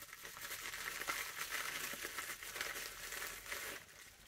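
Plastic bubble-wrap packet crinkling and rustling in the hands as it is opened and a small plastic bag is pulled out of it. The crackling dies down near the end.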